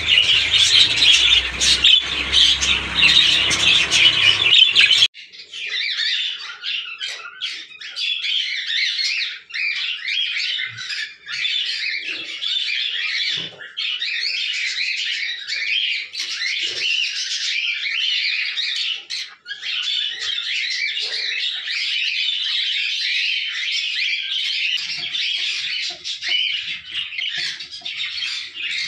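A flock of budgerigars chattering and chirping at once, a dense, continuous twittering.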